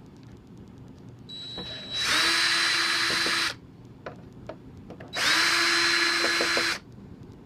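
Power drill running twice in bursts of about a second and a half, with a steady whine, backing out the bolts that hold a table saw's switch housing; a few light clicks between the runs.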